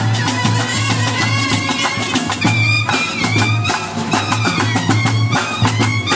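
Brass band playing: trumpets carry the tune over snare drums and clashing cymbals in a steady, busy beat.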